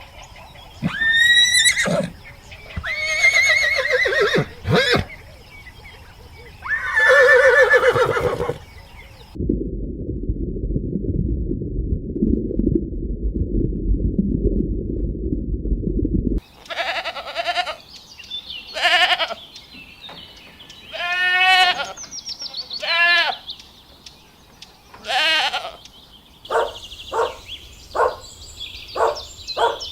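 A run of different farm and other animal calls cut one after another: several long pitched calls for the first nine seconds or so, then a stretch of low rumbling noise that starts and stops abruptly, then more calls, ending in a quick series of short calls.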